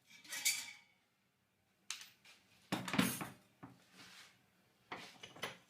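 Steel cable tray and hand tools being handled: a handful of separate metallic clinks and scrapes, the loudest about three seconds in.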